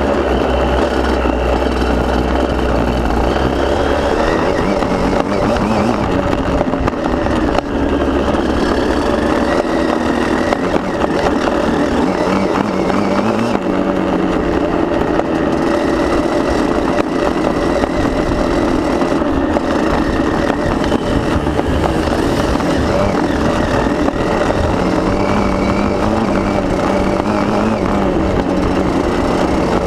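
KTM motocross bike engine running under load at close range, its pitch stepping up and down with throttle and gear changes as it is ridden.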